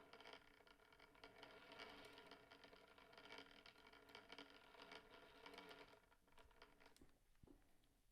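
Faint steady whirr of a Columbia Q phonograph's clockwork spring motor running down as its mainspring tension is released, with light scratchy handling noise; it dies away about six seconds in.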